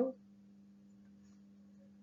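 The end of a spoken word, then a faint steady electrical hum made of a few even tones, with little else: room tone of the narration recording.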